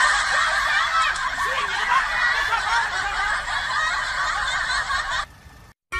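Many voices laughing at once, a dense laugh track of overlapping chuckles and giggles, which stops about five seconds in.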